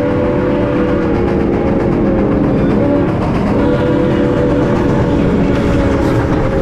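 A freight locomotive's multi-note air horn sounding a held chord, with a brief dip about three and a half seconds in, over the low rumble of the train.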